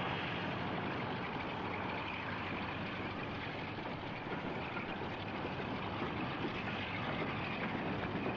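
Diesel train moving off from a station platform: a steady engine and running noise with no break.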